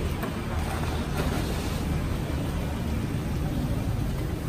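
Steady low rumble of street traffic and motorbike engines, with a soft knock or rustle about a second in.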